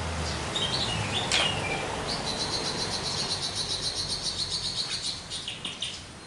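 Javan myna singing: a few short whistled notes, then a long, fast rattling trill lasting about three seconds that fades out near the end.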